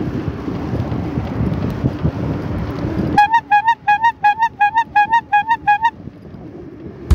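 Wind buffeting the microphone of a camera riding on a moving bicycle. About three seconds in, the wind noise cuts off, and a quick run of about a dozen identical short high pips, roughly four a second, follows for nearly three seconds.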